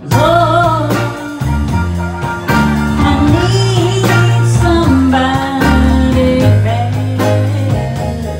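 Live band music: a woman singing over strummed acoustic guitar and a steady bass line, with a regular beat.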